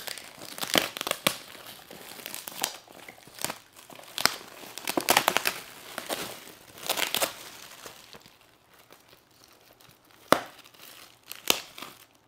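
Shiny metallic foil gift wrap being torn and crumpled off a present, in irregular crinkling bursts that are busiest over the first seven seconds, then a few sharp crackles near the end.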